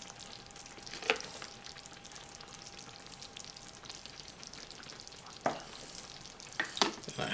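A ladle knocking and scraping against a ceramic serving bowl and the slow cooker's crock while dishing up thick stew and dumplings. It gives a few sharp clinks, one about a second in and three more in the last two seconds, over a faint wet stirring hiss.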